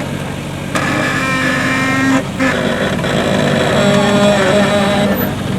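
A modified off-road 4x4 competition truck's engine running and revving, its pitch rising and falling, with a brief drop-off about two seconds in.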